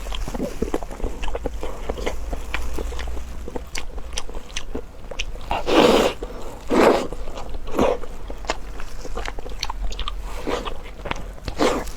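Close-miked chewing and biting of food, a run of small mouth clicks with a few louder bites about six and seven seconds in.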